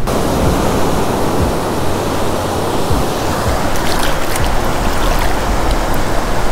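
Ocean surf washing up the beach: shallow swash rushing and fizzing around bare ankles at the water's edge, over the steady rush of breaking waves.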